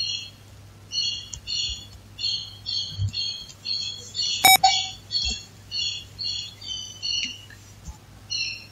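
A bird chirping over and over in short high chirps, about two a second, over a steady low hum, with one sharp click about halfway through.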